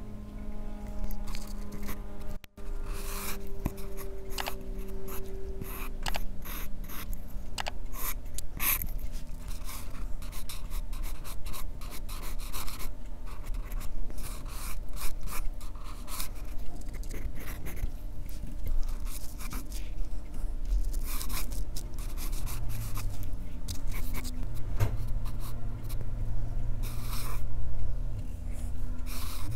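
Graphite pencil scratching across paper in many short, irregular strokes while sketching straight construction lines, over a low steady hum.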